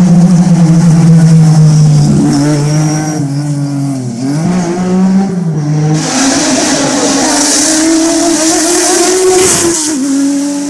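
Lancia Stratos's 2.4-litre Ferrari Dino V6 running hard at high revs, its pitch dropping and climbing again several times as it shifts gear and lifts off. A loud hiss joins it about six seconds in and stops with a sudden drop in revs near the end.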